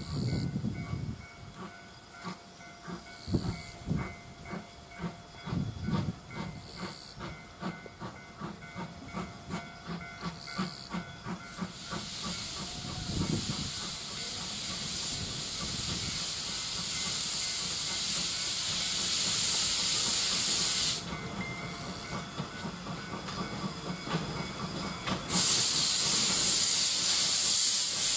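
JNR Class C11 tank steam locomotive (C11 171) working toward the listener with a run of steady exhaust chuffs. About halfway in a loud hiss of escaping steam starts, breaks off briefly, and comes back louder near the end as the engine draws close.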